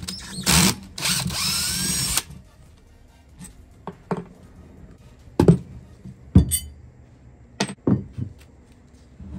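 A cordless drill/driver runs in two short bursts, about half a second and then about a second long, turning a bolt on a wheelchair gear motor. After that comes a scatter of sharp knocks and clunks, the loudest about five and a half and six and a half seconds in, as the drill and the metal motor are handled and set down.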